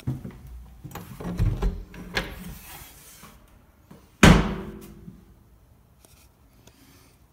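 A door being handled and swung open, with rattles and scrapes, then one sharp knock about four seconds in that rings briefly before dying away, the loudest sound here.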